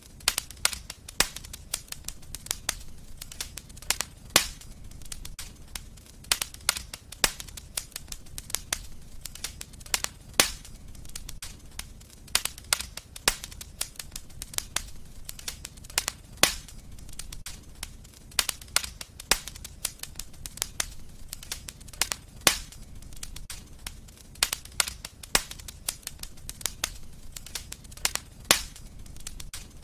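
Wood fire crackling in a fireplace: sharp, irregular pops and snaps several times a second over a low, steady rumble of flame.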